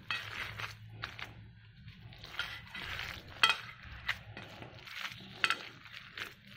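Hands squeezing and mixing a wet mixture of soaked flattened rice (poha) and musk melon pulp in a bowl: soft squelching, with a few sharp clicks against the bowl.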